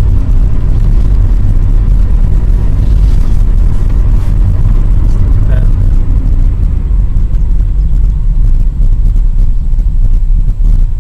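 Car cabin noise while driving: a loud, steady low rumble of road and engine noise.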